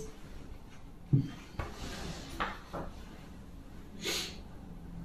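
Quiet room tone broken by a few faint knocks and clicks, about a second in and again near the middle, and a short breathy hiss near the end. These are small movement and handling sounds from someone sitting silently.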